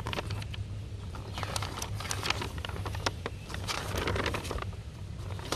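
Paper pages of an instruction booklet rustling and crinkling as they are turned and handled, in many short crackly strokes, over a steady low hum.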